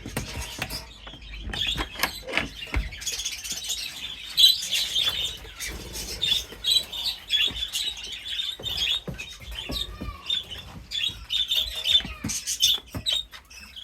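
Small caged birds chirping and twittering continuously, mixed with scattered clicks and rustles.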